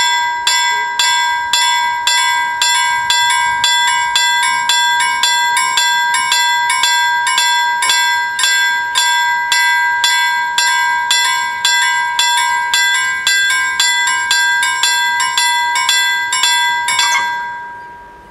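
Electric warning bells of a Swedish railway level crossing ringing with rapid, evenly spaced strikes and a clear ringing tone, warning that a train is approaching. The ringing stops near the end as the barriers come fully down, and the sound dies away.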